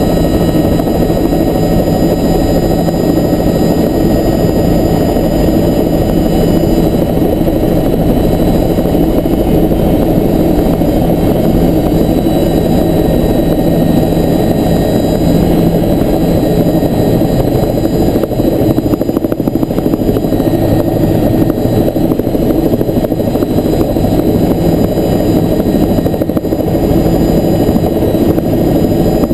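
Helicopter engine and rotor running steadily and loudly, heard close up; a steady hum in the sound fades away about two-thirds of the way through.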